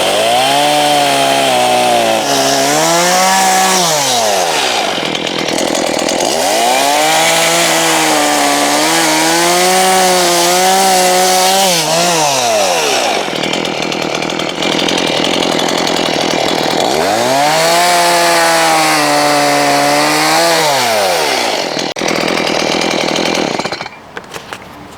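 Two-stroke chainsaw cutting through tree branches: three times the engine revs up, its pitch sagging under load in the wood, then falls back between cuts. The sound cuts off shortly before the end.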